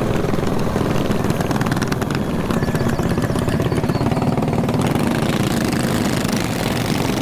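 Mini bike engines running steadily as the bikes are ridden, a fast, even engine pulse.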